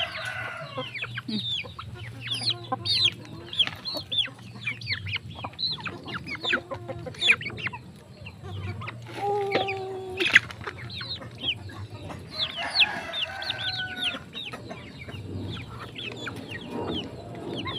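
A flock of brown hens clucking and calling as they crowd around food held out to them, over many short, high, falling chirps. One longer, held call comes a little after nine seconds, and the calls thicken around thirteen seconds.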